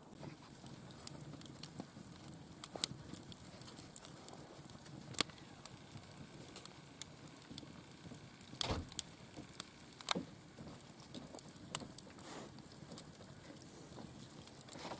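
Open wood fire crackling in a fire pit, with a handful of sharper pops among the small clicks.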